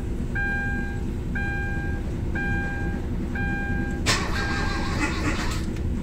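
The Kia Rio's dashboard warning chime beeps about once a second, an even electronic tone, while a start is tried with the ignition on. A short rush of noise comes about four seconds in. The engine does not fire because the battery is too low.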